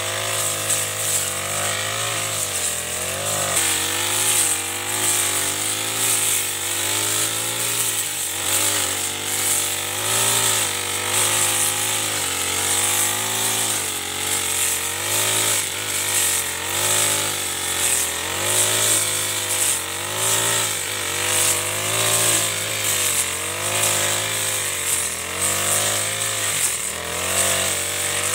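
Chinese-made Honda-type four-stroke backpack brush cutter running at high revs while cutting through thick weeds. Its engine note keeps dipping and picking up again as the cutting head bites into the growth and clears it.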